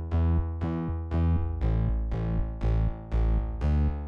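Background music: synthesizer notes over a strong bass, struck in a steady rhythm of about two a second.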